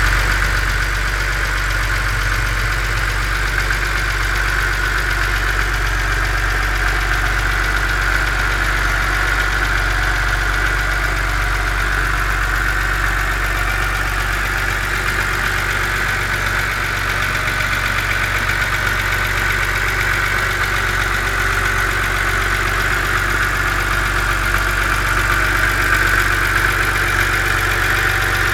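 BMW Z4 2.5si's straight-six engine idling steadily while cold, with a ticking noise from the engine.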